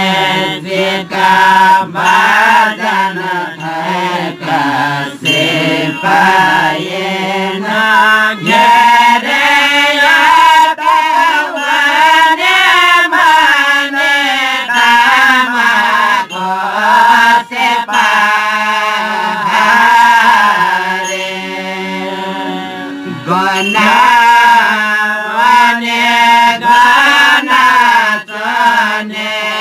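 Jyapu singing group performing an old Newari devotional song in chant-like unison, accompanied by a held harmonium, tah small cymbals and a lalakhi barrel drum keeping a steady beat.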